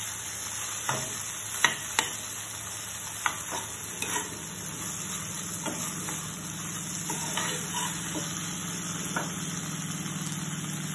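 A metal spoon stirs and scrapes paneer-and-vegetable filling around a nonstick pan, clicking against the pan every second or two, over a light sizzle on low heat. A steady low hum comes in about four seconds in.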